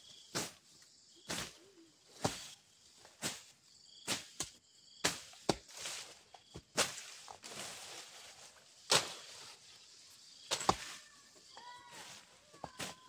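A long hand blade slashing through tall grass stems, in sharp strokes about once a second, some in quick pairs.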